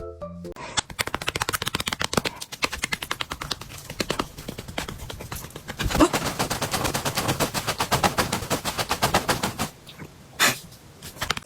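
A rapid run of sharp clicks, about nine a second, that stops near the end, followed by one louder single click.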